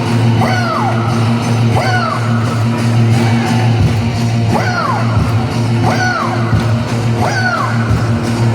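Live pop-rock band music played loudly over a stadium PA, a steady low bass drone under a short swooping phrase that rises and falls in pitch about every second and a half, as the song's introduction.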